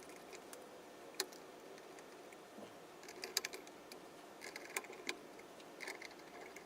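Scattered light clicks and ticks of small parts being handled: one sharp click about a second in, a cluster of clicks from about three to five seconds in, and another near the end.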